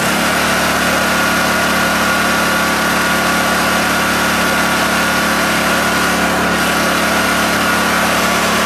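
Honda EU2000i inverter generator's small single-cylinder four-stroke engine running. Its speed picks up right at the start, then it runs steadily. It exhausts through a flexible metal hose extension on the muffler with no whistling.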